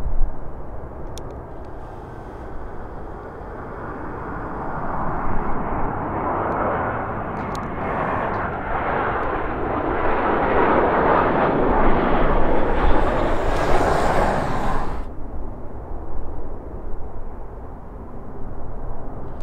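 Jet engine noise of an Airbus A320-232 on approach, with its IAE V2500 turbofans. It builds over several seconds to a loud rushing noise as the plane passes, then cuts off abruptly about fifteen seconds in, leaving fainter background noise.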